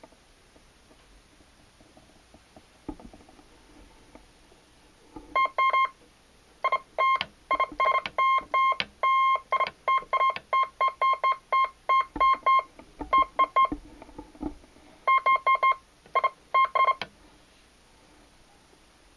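Morse code sidetone from a Heathkit HD-10 electronic keyer, keyed by the paddle of a Bunnell Gold Bug key: runs of short and long beeps at one steady pitch of about 1 kHz, starting about five seconds in and stopping a couple of seconds before the end, with brief pauses between groups.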